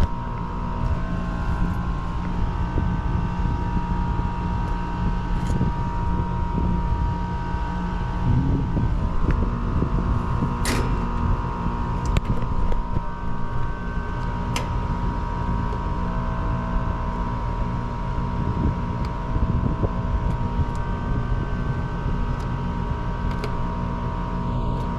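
A steady machine hum, with several held tones over a low rumble, and a few light clicks and knocks, the sharpest about eleven seconds in.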